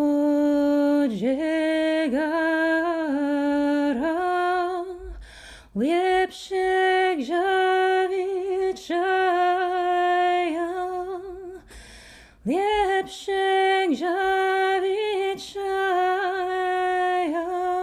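A woman singing solo and unaccompanied, a slow folk lament in three long phrases with short breaks between them. Each phrase starts with an upward scoop onto long held notes that dip and waver in small ornaments.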